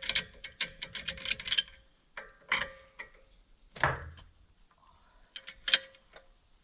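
Irregular small clicks and taps of hand work on wood and hardware, coming in quick clusters, with one duller knock about four seconds in.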